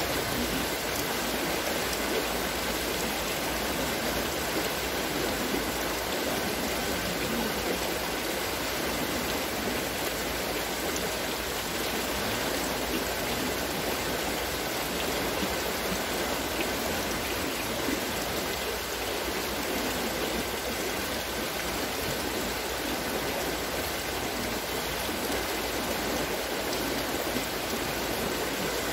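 Wooden water-lifting bucket wheel turning, its buckets pouring and splashing water in a continuous, steady rush.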